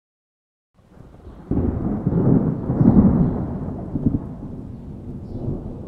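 Thunder-like rumbling intro sound effect. It starts faintly about a second in, swells sharply at about a second and a half, peaks around three seconds, then slowly fades.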